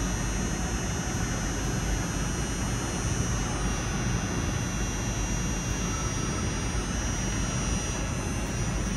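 Steady, even rushing noise filling an empty indoor gymnasium, with no speech or impacts.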